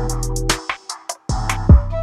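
Background music with a steady electronic beat and bass; the bass and drums drop out briefly near the middle and come back in.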